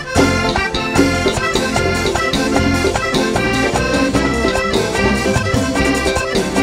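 Hohner Corona III button accordion playing a run of quick notes in an instrumental passage of a live vallenato band, over bass and a steady beat.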